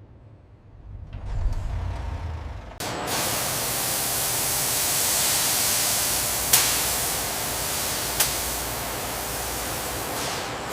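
A low rumble, then from about three seconds in a loud, steady hiss like rushing air, with two sharp clicks partway through.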